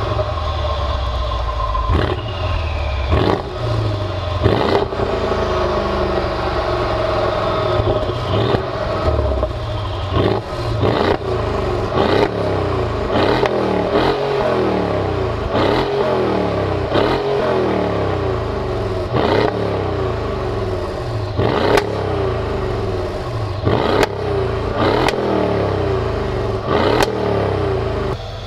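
Mercedes-Benz GL63 AMG's 5.5-litre twin-turbo V8 running just after start-up, blipped with short stabs of throttle about once a second, each rev rising and dropping quickly back to idle, heard right at the quad exhaust tips.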